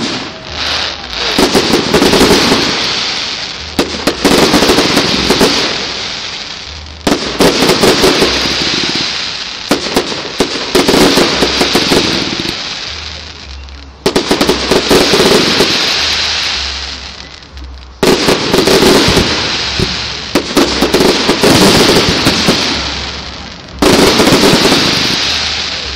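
Fireworks display: loud bursts every few seconds, each followed by a thick spell of crackling that fades away before the next burst.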